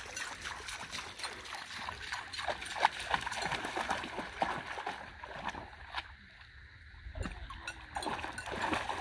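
A dog wading through shallow lake water over a pebbly bottom, splashing with irregular steps, with a quieter lull about two-thirds of the way through.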